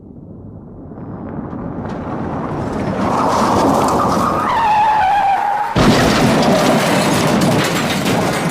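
Car crash sound effect: a car's rushing noise builds up, tyres squeal with a falling pitch, then a sudden impact about six seconds in, followed by a dense clatter of crunching debris.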